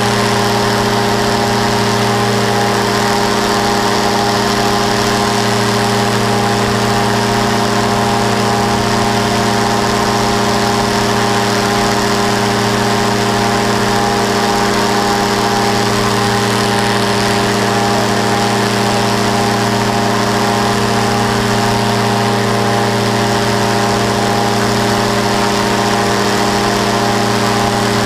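Powered parachute's engine and propeller running at a steady throttle in flight, an unchanging drone heard from a camera mounted on the cart, with rushing air noise over it.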